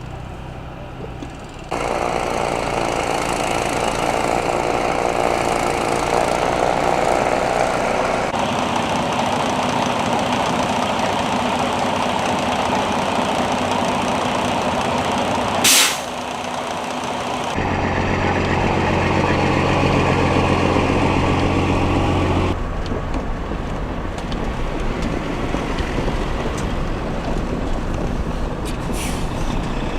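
Heavy vehicle engines running, with the sound changing abruptly several times; a steady engine hum with even tones stands out midway, and a short loud hiss comes about sixteen seconds in.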